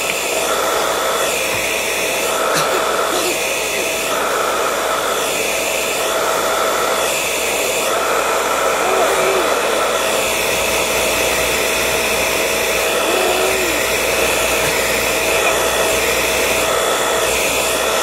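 Handheld hair dryer running continuously: a loud rush of air with a steady whine. For the first half its tone rises and dips about once a second, then it evens out.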